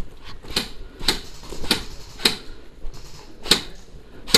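Footsteps crunching on loose gravel at a steady walking pace, about two steps a second.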